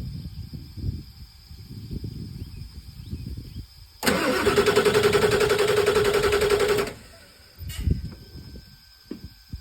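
Ford 7.3 Power Stroke diesel cranking on its starter for about three seconds with a fast, even pulsing, then stopping abruptly without the engine catching: a no-start on an engine that is hard to get going. Low rumbling comes before the cranking.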